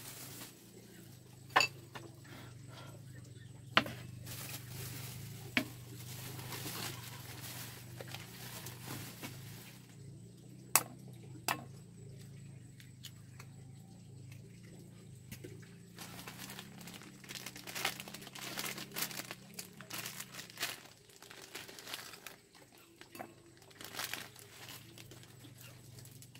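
Plastic bag and food packets crinkling and rustling as they are handled, thickest in the second half, with a few sharp clicks and knocks in the first half as a ceramic bowl is moved and set down.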